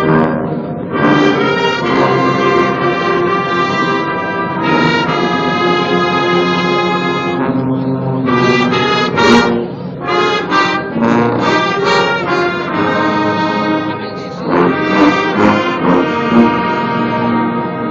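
Marching band brass section playing a church hymn in long held chords, in phrases of a few seconds with short breaths between them.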